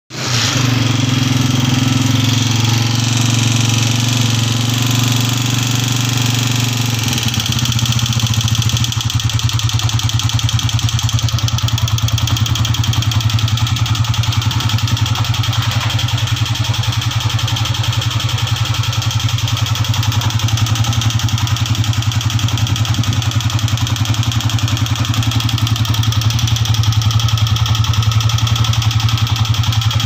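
Honda CG125's single-cylinder four-stroke pushrod engine running at a raised idle with a constant tappet tick-tick. The tick persists even after the head, cylinder and piston rings were redone and the tappets adjusted, and the engine stalls if let down to a slow idle. It runs a little louder for the first seven seconds or so, then settles to a steady fast idle.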